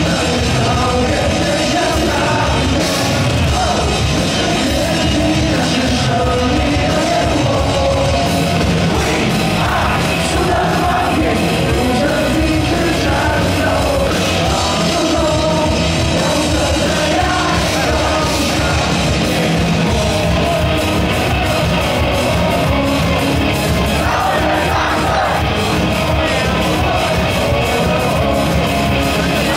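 Loud rock song played through a PA, with a male vocalist singing into a microphone over the band.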